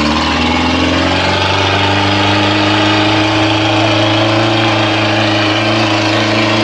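Truck engine running, loud and steady, its pitch rising a little in the first second and then holding.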